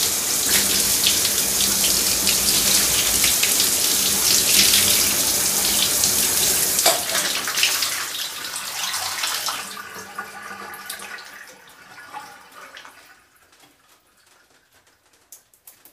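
Shower spray running steadily, then shut off about halfway through with a sharp click; the flow dies away over the next several seconds to a few faint drips.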